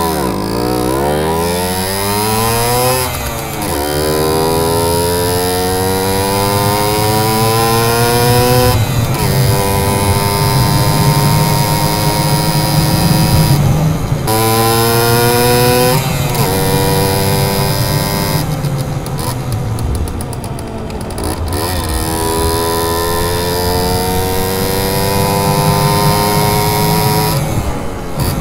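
Simson S51 moped's two-stroke single-cylinder engine under way, revving up through the gears. Its pitch climbs steadily and drops sharply at each gear change, about four times.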